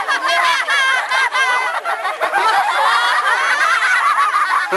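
A crowd of children laughing and giggling together, many high voices overlapping.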